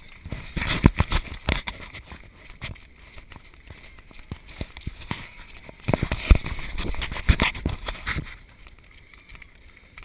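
Footsteps on a dirt and gravel path mixed with the knocks and rubbing of a handheld camera being carried while walking. The impacts come in uneven bursts, loudest in the first two seconds and again about six to eight seconds in, then ease off.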